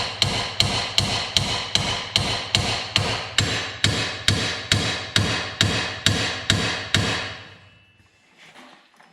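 Hammer blows on a steel steering knuckle, about three a second in a steady series, each with a metallic ring, knocking the ball joint stud loose from its taper. The blows stop about seven seconds in.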